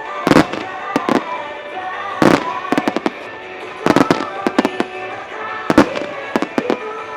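Aerial firework shells bursting in a starmine rapid-fire barrage: sharp bangs at irregular intervals, several coming in quick runs of three or four. Music plays underneath.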